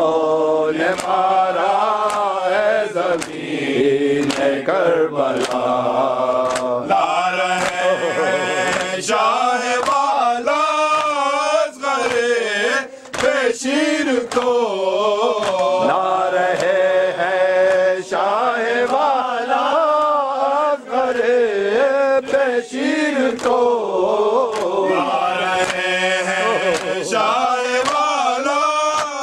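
Men's voices chanting an Urdu noha, a Muharram lament: a lead singer's wavering, ornamented melody with others joining in. Short sharp slaps keep time through it, from hands beating chests in matam.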